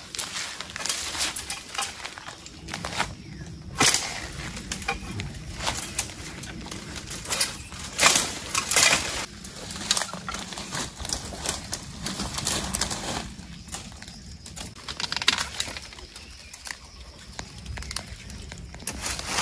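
Rustling and crunching of leaves and undergrowth underfoot and against the body, irregular, with sharper cracks about 4 and 8 seconds in.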